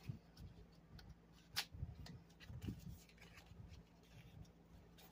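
Faint handling noises of items being moved about: light taps and rustles, with one sharp click about a second and a half in, over a faint steady low hum.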